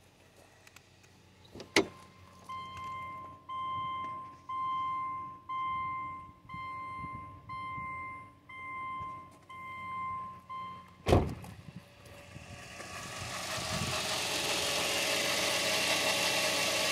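A car's dashboard warning chime dinging about once a second, nine times, then a loud thump about eleven seconds in. After it, the steady noise of the 2005 Subaru Outback's H6 boxer engine running grows louder over a couple of seconds and holds.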